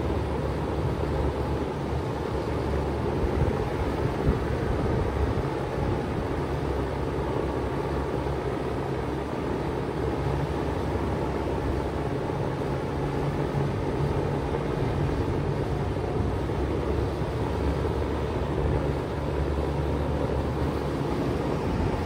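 2018 Bard 3-ton wall-hung heat pump running steadily in cooling mode, its compressor and outdoor fan giving a low hum under an even rush of air.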